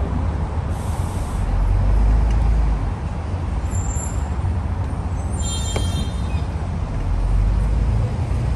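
Tour bus engine and road rumble heard from the open top deck, swelling a little twice. There is a short hiss about a second in and a brief high-pitched ring or squeal a little past halfway.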